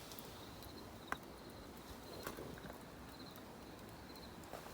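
Faint outdoor ambience with a faint, repeated high chirping and a couple of light clicks.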